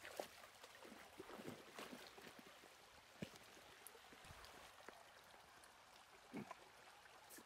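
Faint steady burble of a shallow, rocky river, with a few scattered knocks and crunches of footsteps on stones and brush along the bank.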